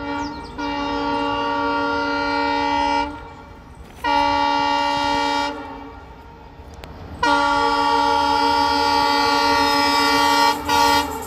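Train horn sounding in four blasts: one of about two and a half seconds, a shorter one, a long one of about three seconds, and a brief toot near the end.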